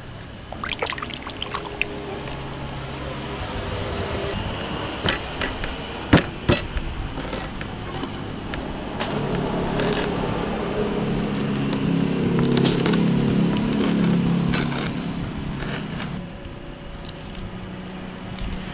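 Sharp knocks and taps of lemongrass stalks being bashed with a stone pestle on a plastic cutting board. A low steady drone swells in the middle and fades away.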